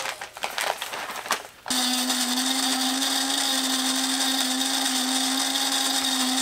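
Clicks and rustling of a coffee bag being handled. About two seconds in, a small electric motor starts abruptly and runs steadily with a constant whirring hum.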